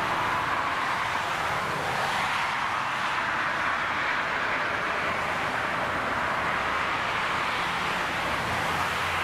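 Airbus A380's four jet engines on final approach and touchdown: a steady rushing noise with no sharp changes.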